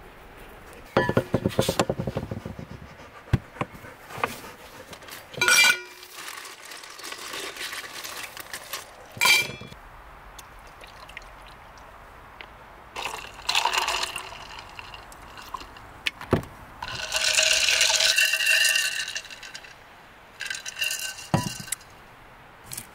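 Drink being poured from a carton into an insulated tumbler, with clinks and knocks of containers set down and handled between pours. The longest pour, lasting a couple of seconds, comes in the second half.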